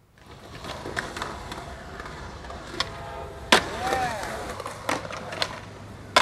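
Skateboard wheels rolling on concrete, broken by sharp clacks and slaps of the board landing and hitting the ground, the loudest about three and a half seconds in.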